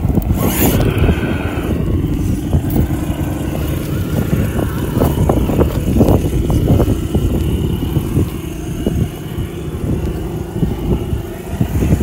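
Electric RC scale rock crawler climbing over rocks: a steady whine from its motor and gearbox, with scattered knocks and scrapes of tyres and chassis against stone, thickest in the middle.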